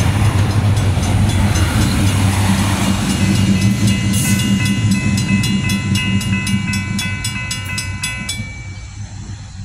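NCTD Sprinter diesel passenger train passing over a grade crossing, its engine drone and wheel rumble fading as it moves away. The crossing's mechanical and electronic warning bells ring with rapid, even strikes, heard clearly from about four seconds in and stopping about a second before the end.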